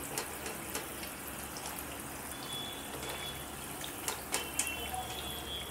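Bedmi pooris deep-frying in hot oil in a kadai, a steady sizzle. A few light clicks come from the wire frying spoon as it lifts them out, near the start and again about four seconds in.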